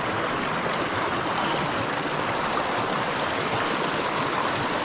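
Small mountain creek's water rushing steadily over rocks, an even, unbroken flowing sound.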